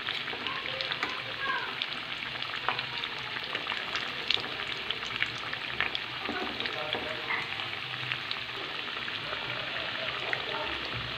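Chicken and potato pinwheels deep-frying in hot oil in a wok: a steady sizzle with many small crackling pops.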